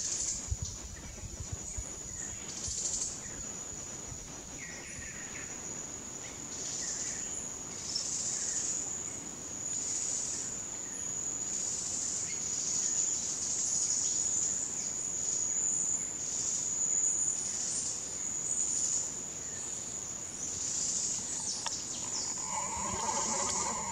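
A steady, high-pitched insect drone, with louder swells every second or two. Near the end a steady, pitched call with several stacked tones begins.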